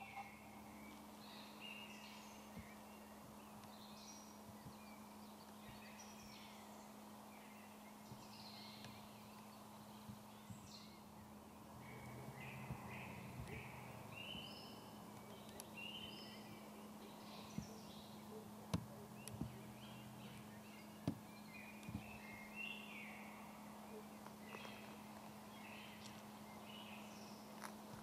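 Faint calls of small birds: many short, high chirps scattered throughout, over a steady low hum, with a few sharp clicks in the second half.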